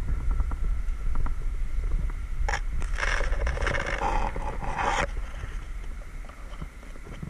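Low wind rumble on the microphone with a faint steady high drone behind it, broken by a loud burst of hissing, rustling noise lasting about two seconds, from about three to five seconds in.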